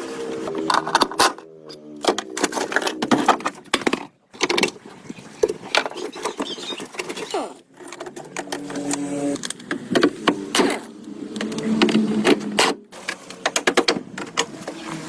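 A busy run of sharp clicks, taps and knocks, with short steady hums now and then. The sound cuts off abruptly a few times.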